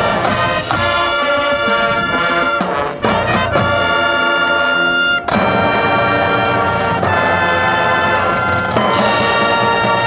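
Marching band brass (trumpets, mellophones, trombones, sousaphones) playing loud held chords. A new chord comes in every two to three seconds.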